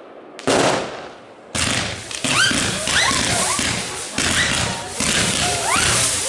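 Fireworks display: a sharp burst about half a second in that fades away, then from about a second and a half a dense, continuous barrage of launches, bangs and crackle.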